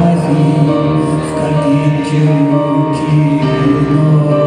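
Live rock band with a string section of violins and cello playing long held notes, with a singer's voice over it.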